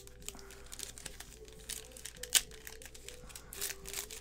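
Foil wrapper of a basketball card pack crinkling as it is handled and torn open by hand: irregular small crackles, with one sharper crackle a little past halfway.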